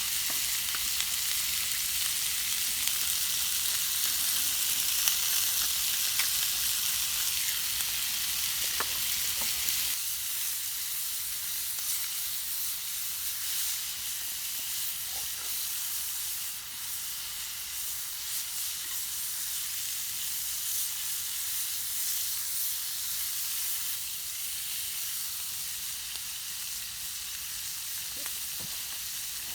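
Chicken gizzards sizzling as they fry in a pan: a steady frying hiss, a little quieter after about ten seconds, with a few faint clicks.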